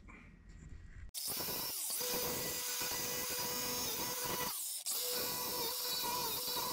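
Angle grinder cutting off steel bolts that stick through a truck's frame rail, throwing sparks. It starts about a second in with a steady whine, breaks off briefly a little past halfway, then cuts again.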